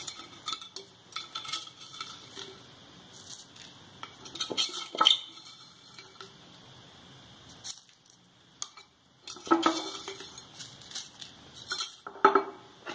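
A spoon clinking and scraping against a glass and a clay pot as salt is scooped and added to raw prawns, in irregular bursts of taps and clatter, loudest about five seconds in and again near the end.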